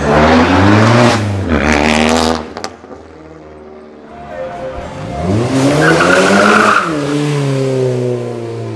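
Small sports cars accelerating hard away over slippery paving. An engine revs up loudly over the first two seconds, then about five seconds in a second car revs up with a tyre squeal, and its note falls away as it drives off.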